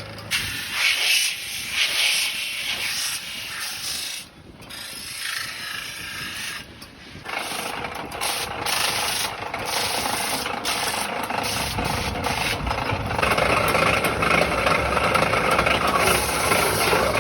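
Lathe work on a spinning metal sheet: a tool scrapes and rubs against the turning metal with a hissy rasping sound. About two-thirds of the way through, a steady, low machine running sound comes in and stays to the end.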